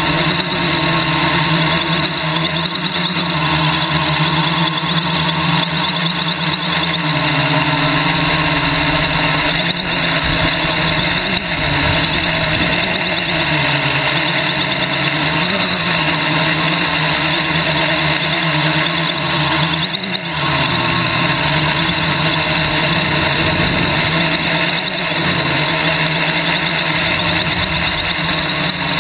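Quadcopter's four brushless motors and propellers whining steadily, heard from a GoPro mounted on the frame. The pitch wavers and dips briefly a few times as the throttle shifts, over a rushing noise of prop wash.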